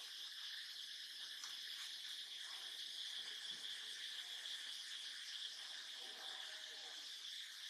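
Steady, high-pitched insect chorus humming without a break.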